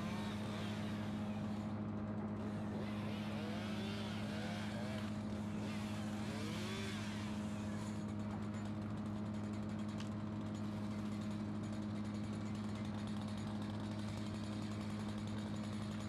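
An engine running at a steady, unchanging speed, without revving up or down.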